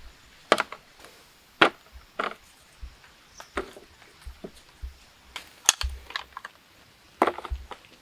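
Wood being chopped and broken by hand: irregular sharp cracks, about six loud ones spread over several seconds, some followed by smaller splintering ticks.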